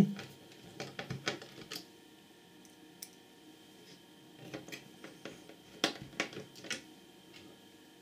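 Small screws being fitted and turned with a hand screwdriver into a metal switch chassis: scattered light clicks and taps, one cluster about a second in and another in the middle.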